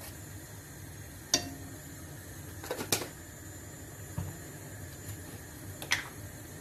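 A few sharp clicks and knocks of small spice containers being handled and set down on a granite counter, the loudest about a second and a half in, then a pair near three seconds and another near six, over a low steady hum.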